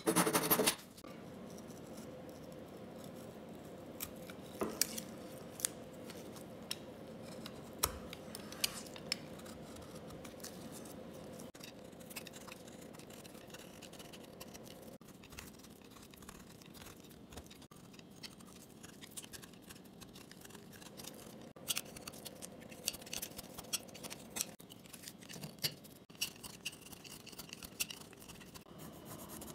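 A hand saw finishing a cut through a small wooden block in the first second. Then a knife whittling a wooden handle blank: scattered short scraping cuts and clicks as shavings come off.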